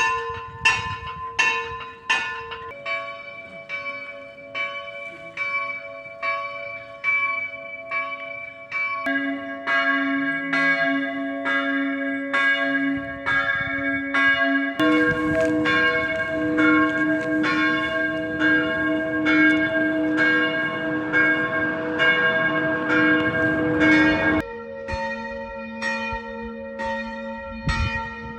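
Swinging church bells ringing, their clappers striking about two times a second, each stroke leaving a lingering hum. The bell and its pitch change abruptly four times as one bell recording cuts to the next.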